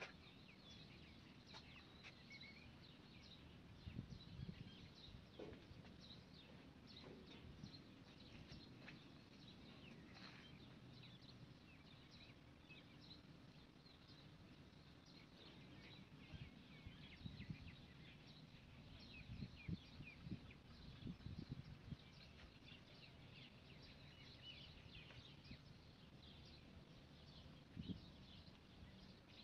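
Faint, frequent chirping of birds. A few low knocks stand out about four seconds in, in a cluster a little past the middle, and once near the end.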